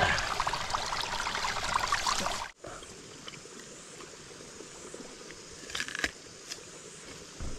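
Water poured over a person's head, splashing and trickling, cut off suddenly about two and a half seconds in. Then a quiet forest background with a couple of crisp bites into an apple a little past the middle.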